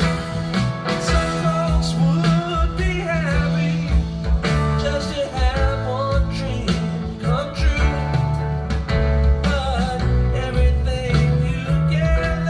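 Recorded music with a singing voice, guitar, bass and drums, played back through a hi-fi amplifier and loudspeakers and picked up by a microphone in the listening room.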